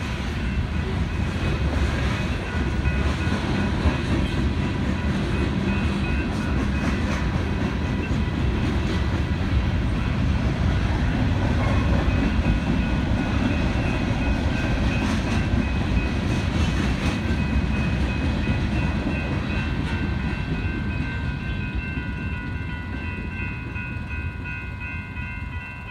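Freight train cars rolling through a grade crossing, a heavy steady rumble with wheel clatter, while the crossing's warning bells ring. The rumble fades over the last few seconds as the end of the train clears the crossing, leaving the bells.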